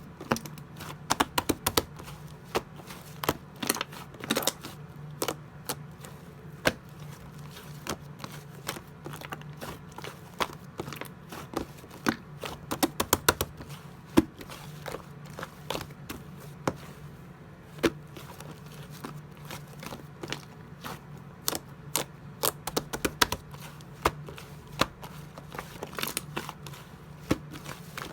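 Slime being pressed and squished by hand, giving irregular sharp clicks and pops, sometimes in quick clusters.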